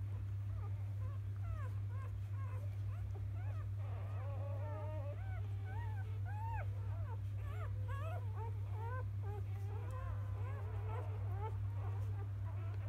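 Newborn Labrador Retriever puppies squeaking and whimpering: many short, high, rising-and-falling squeaks overlapping, busiest in the middle, over a steady low hum.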